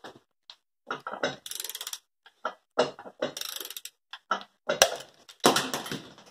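Socket ratchet working a connecting-rod cap nut: several short runs of fast ratchet clicks, with sharper single knocks of the tool between them.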